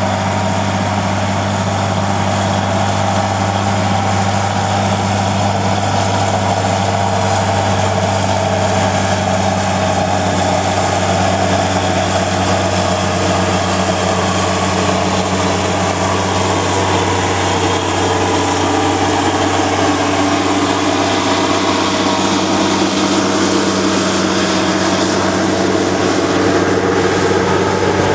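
Case IH Quadtrac tracked tractor's diesel engine running steadily under heavy draught load, pulling a cultivator with tines working 16 inches deep. A low, even hum with a constant rushing noise over it.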